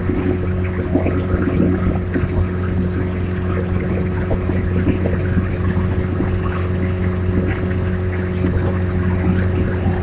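Small motorboat engine running at a steady speed, a constant hum, with water rushing and splashing past the hull.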